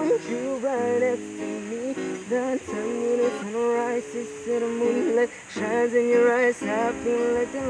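Acoustic guitar strummed in chords, with a voice singing a melody over it.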